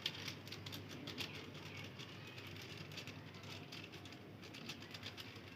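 Faint crackle of many small irregular clicks from goat meat curry cooking in the pot on the heat.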